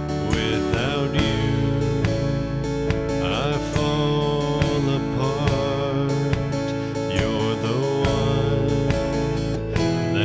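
Church praise band playing, led by strummed acoustic guitar, with sustained chords and a gliding melodic line.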